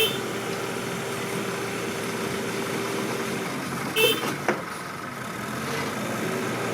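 Mini excavator engine running steadily, with a brief sharp clank about four seconds in and a click just after it.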